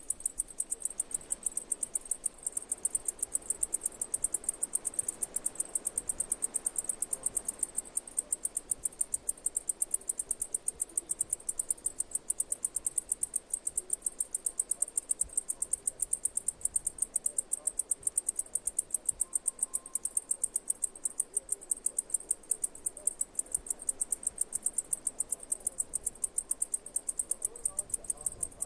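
Insect chirping: a high-pitched, steady train of short, even pulses at about four a second.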